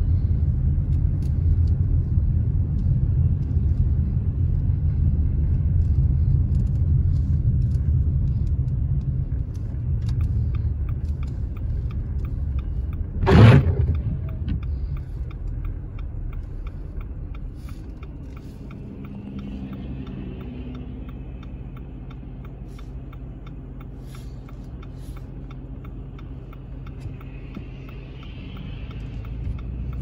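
Road and engine rumble inside a car driving on a snow-covered street, with a single sharp thump about 13 seconds in. After the thump the rumble drops to a quieter low hum as the car slows, with a regular ticking running through it.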